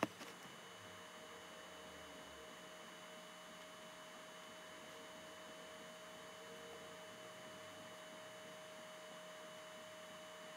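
Faint steady electrical hum: a constant mid-pitched tone with a fainter high whine over background hiss. A sharp click at the very start.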